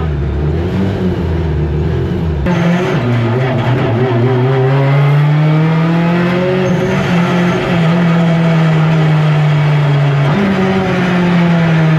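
Deep Orange 9 race car's engine running as the car is driven, its pitch climbing over a few seconds and then holding steady, with a sudden jump up in revs about ten seconds in. A deep low rumble drops away about two seconds in.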